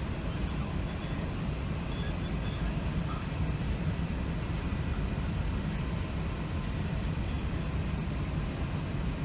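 Steady low rumble of an Airbus A380's cabin noise, engines and air systems heard from a passenger seat while the airliner is still on the ground before its take-off run.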